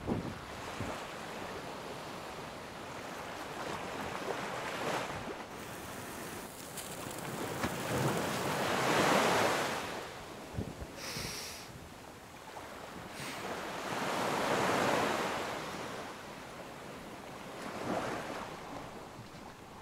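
Ocean surf: waves washing in and drawing back in slow swells, loudest about nine and fifteen seconds in. A brief high hiss comes near eleven seconds in.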